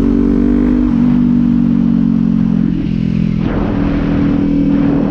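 Kawasaki Z400's parallel-twin engine running on the move, its pitch stepping down about a second in and changing again a little past halfway.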